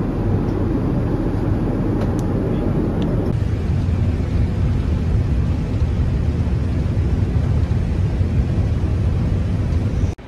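Steady cabin noise of an airliner in flight, a low rumble of engines and airflow heard from a seat inside the cabin. It shifts to a deeper, less hissy rumble about three seconds in.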